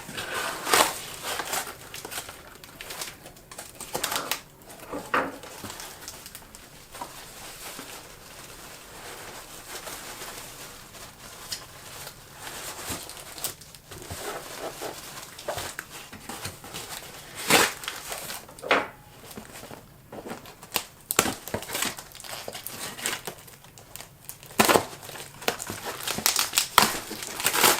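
Packing material and plastic wrapping crinkling and rustling as a tightly packed box is pulled open, in irregular bursts of crackles, with louder sharp rustles about two-thirds of the way through and near the end.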